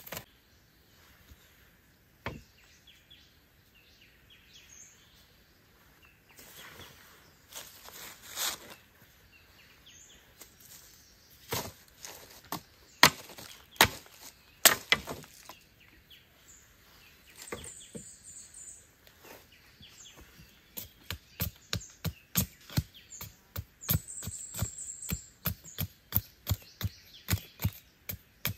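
Machete chopping wood by hand: a few scattered knocks, then several hard blows around the middle, and from about two-thirds in a steady, quick run of chops at roughly two or three a second. A bird chirps briefly twice in the background.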